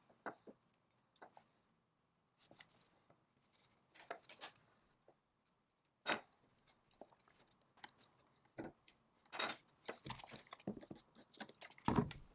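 A thin blade scraping at a small brass disc, with light clicks and taps as the brass parts are turned and set down on a wooden bench; a few sharper clicks stand out, the loudest near the end.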